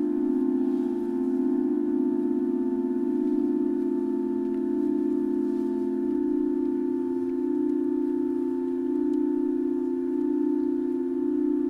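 Pipe organ holding a dense tone cluster in the middle register: many close pitches sounding together as one steady mass, with a slow regular wavering in loudness.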